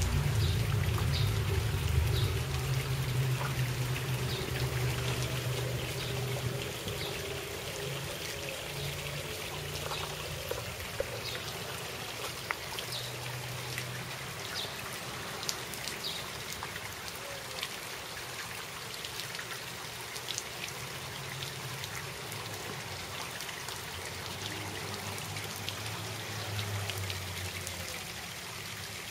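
Small lawn sprinkler spraying water that patters and trickles onto wet asphalt, with many small droplet ticks. A low hum runs through the first several seconds and comes back near the end.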